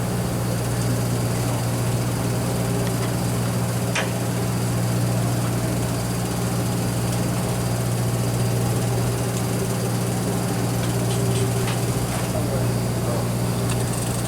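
A fishing party boat's engine running steadily, a constant low drone. There is a brief sharp click about four seconds in.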